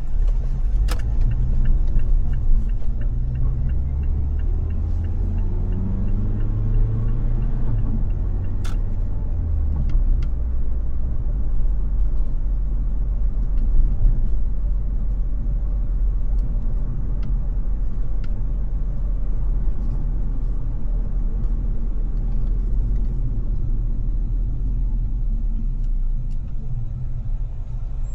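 Car driving in city traffic: a steady low rumble of engine and road noise, with an engine note rising in pitch as a vehicle accelerates from about four to ten seconds in.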